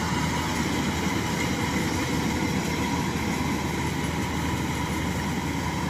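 Kubota rice combine harvester running steadily, a constant mechanical drone of its engine and threshing machinery as it works into standing rice.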